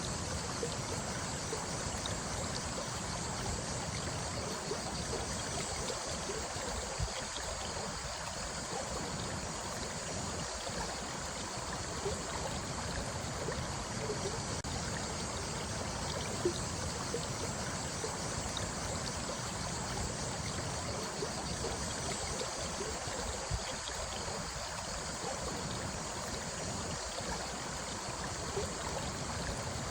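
Shallow stream running and trickling steadily, with small splashes and gurgles here and there.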